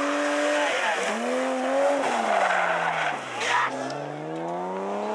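BMW E30 rally car drifting through a tight bend, its engine revving hard, with brief dips in pitch about one and two seconds in and tyres skidding on the tarmac. Its revs sink to a low point about three and a half seconds in, then climb steadily as it accelerates away.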